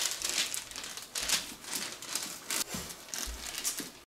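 Wooden rolling pin rolled back and forth over dough between two sheets of baking paper, the paper crinkling and rustling with each stroke, about once a second.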